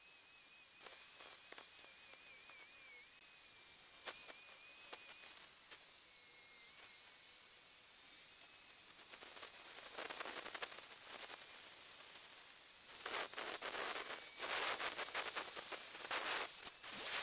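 An angle grinder with a sanding disc sanding the outside of a wooden bowl blank. It is heard as a soft, steady hiss, with louder, uneven scratchy bursts in the last few seconds as the disc bites into the wood.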